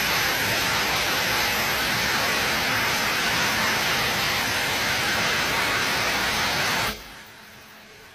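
Automatic face-mask production machine running with a loud, steady hiss, which cuts off abruptly about seven seconds in.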